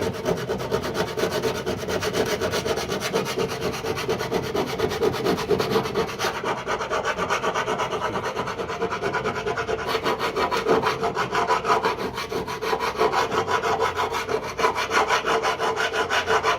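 Hand file rasping back and forth in rapid, even strokes over the steel weld seam of a car's door sill, taking down a high spot on the weld.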